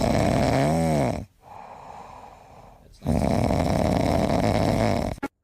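Snoring: two long, loud, noisy breaths with a quieter pause of about a second and a half between them. The first ends with a brief tone that rises and falls.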